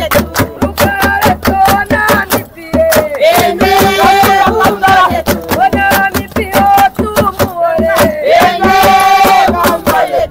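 Group of voices singing together over a steady beat of sharp strikes.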